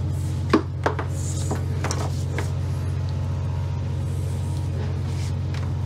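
A steady low mechanical hum, with a couple of sharp plastic clicks and a few lighter ones in the first two and a half seconds as the angle grinder's housing and cord strain-relief bushing are handled during reassembly.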